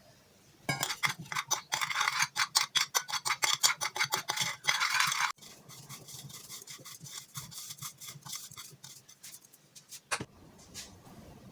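Rapid back-and-forth rubbing strokes, several a second. They are loud for about the first five seconds, then go on lighter and softer, and stop about ten seconds in.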